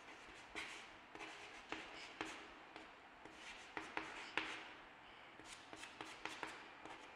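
Chalk writing on a chalkboard: faint, irregular taps and short scratching strokes as letters are written.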